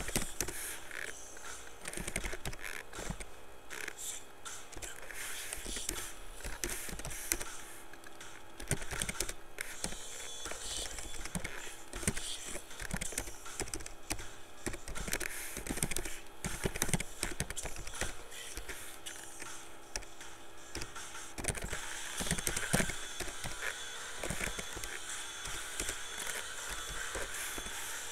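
Computer keyboard keys clicking in irregular runs of typing.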